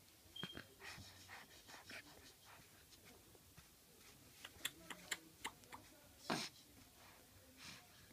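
A toddler's faint breathing and mouth sounds close to the microphone: short soft puffs, a run of small clicks, and a louder breathy puff about six seconds in.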